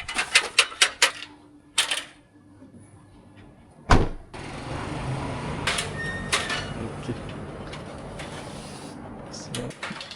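A quick run of sharp clicks and clacks, then a single knock, then a loud knock about four seconds in, followed by a steady rushing noise with occasional clicks.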